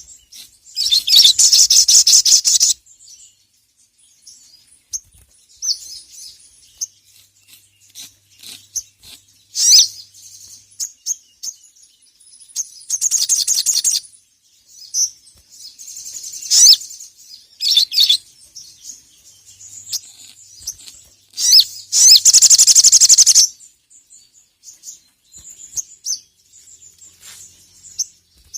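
Ruby-cheeked sunbird (sogon, sogok ontong) singing in high-pitched chirps, broken three times by a loud, fast, buzzing trill lasting one to two seconds.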